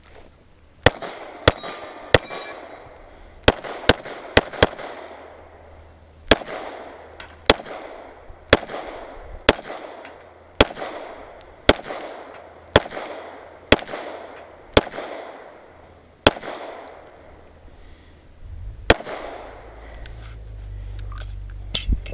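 Gunshots from a competition firearm, about twenty in all. Each is a sharp crack followed by a fading echo. They come in a quick cluster early on, then a steady pace of about one shot a second, then two close together near the end.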